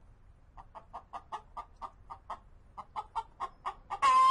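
Hen clucking, a quick run of short clucks about four a second, then a louder drawn-out squawk near the end.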